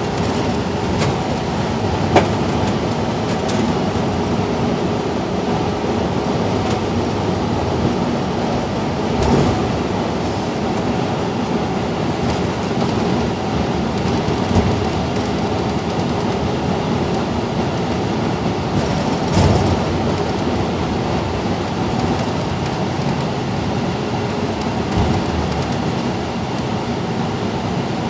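Cabin ride noise of a 2012 Gillig Low Floor transit bus on the move: a steady drivetrain and road rumble, with a few sharp knocks and rattles a few seconds apart, the loudest about two seconds in.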